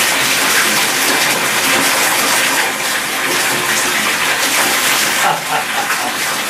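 Bath tap running steadily, water gushing into a filling bathtub.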